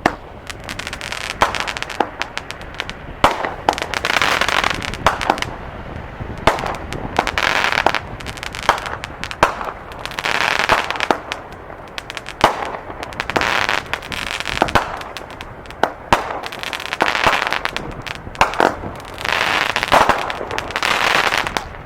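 Aerial firework shells fired from mortar tubes: a string of sharp bangs from launches and bursting shells, with repeated stretches of crackling about every two to three seconds.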